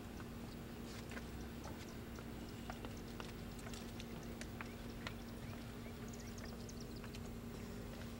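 Faint outdoor ambience under a steady low hum, with scattered light clicks and ticks and a short run of faint high chirps about six seconds in.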